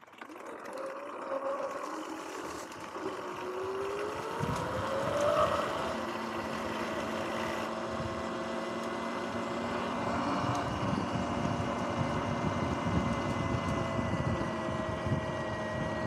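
Sur-Ron X electric dirt bike pulling away: its motor whine rises in pitch over the first few seconds, then holds steady at riding speed over a continuous rush of noise.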